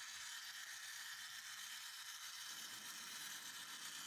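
Wind-up toy fishing pond game turning, its clockwork running with a faint steady whir.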